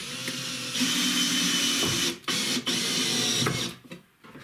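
Cordless drill-driver driving screws into a wooden batten. The motor runs steadily for about two seconds, stops, gives a short burst, then runs again for about a second before stopping.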